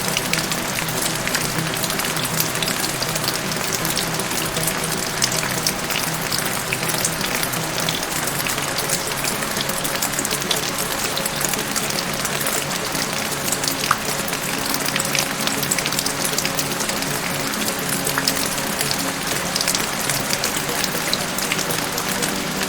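Steady rain, a dense hiss of many small drops ticking, over soft background music of low held tones.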